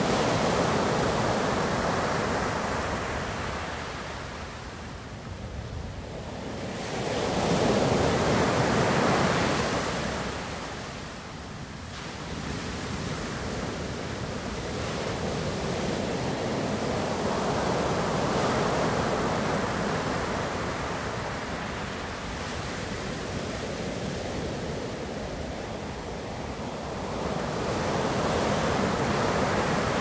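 Steady rushing noise that swells and ebbs slowly, with louder surges about eight seconds in and near the end.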